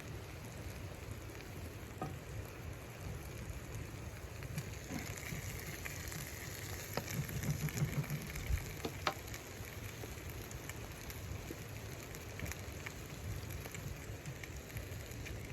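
A steady hiss with scattered small crackles and ticks over a low rumble, louder for a few seconds in the middle.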